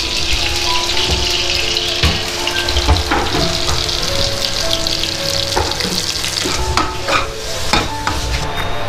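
Puris deep-frying in hot oil, a steady sizzle with a few sharp clicks from a utensil against the pan. Soft background music with held melody notes plays underneath.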